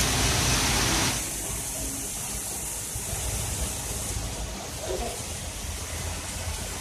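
Steady hiss of heavy rain over a low rumble of jammed road traffic. The hiss is louder and brighter for about the first second, then settles to a duller level.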